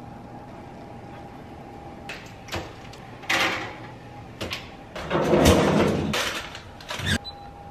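Kitchen appliance doors being handled: a wall-oven door swung open and a refrigerator's freezer drawer pulled out, with several clicks and knocks and a longer sliding rush about five seconds in.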